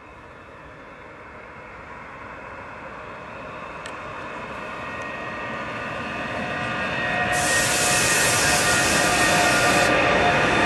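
Two Transnet Class 22E dual-voltage electric locomotives hauling a freight train slowly approach and pass close by, the rumble of the train growing steadily louder. Steady whining tones from the locomotives come in as they near, and a loud hiss sounds for about two and a half seconds, starting about seven seconds in as the lead locomotive draws alongside.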